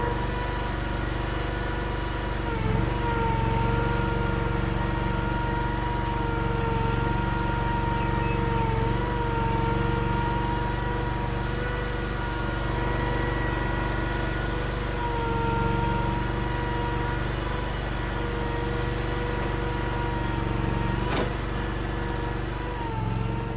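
Honda gasoline engine of a mini skid steer running steadily at a constant speed, its pitch dipping briefly a few times.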